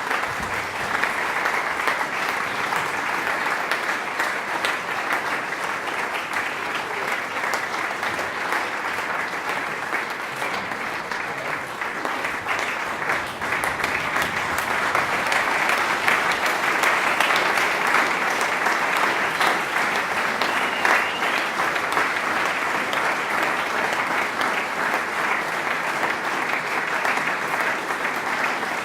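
Audience applauding: sustained clapping from a large crowd in a hall, swelling slightly about halfway through.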